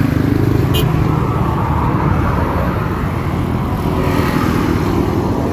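Steady road traffic noise from passing cars and motorcycles, with a short click about a second in.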